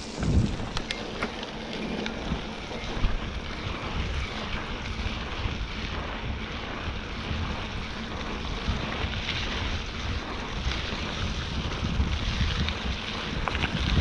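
Wind buffeting a bike-mounted action camera's microphone over the rumble and crunch of mountain bike tyres rolling on a gravel dirt road, steady throughout, with a few sharp clicks in the first two seconds.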